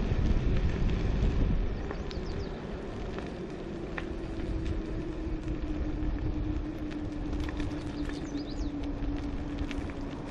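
Electric scooter ridden uphill: heavy wind and tyre rumble for the first second or two, then quieter, with a steady hub-motor whine coming in about three and a half seconds in and sinking slightly in pitch.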